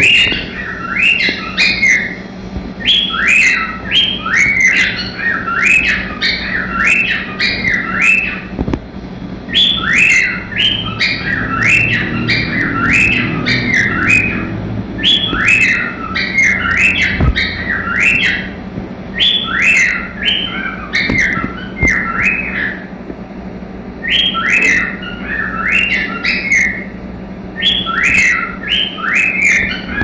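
Male cockatiel singing: quick runs of short chirpy whistled notes in phrases of a few seconds, repeated over and over with brief pauses between phrases.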